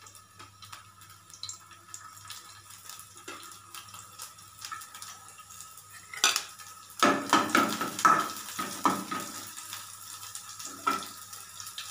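Finely chopped garlic sizzling with faint crackles in hot oil in a kadhai. From about six seconds in, a steel spoon clatters and scrapes against the pan several times; these are the loudest sounds.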